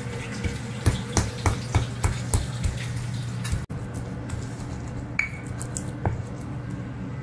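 Stone pestle (ulekan) grinding and knocking against a stone mortar (cobek), crushing raw chilli sambal: quick knocks about three a second, then only a few scattered knocks after a short break midway.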